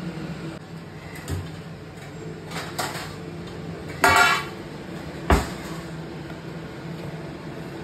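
Stainless steel plate pulled from a drawer of stacked steel dishes, clattering and ringing against them about four seconds in, followed about a second later by a sharp knock. A few softer knocks of the drawer and cabinet come earlier, over a steady low hum.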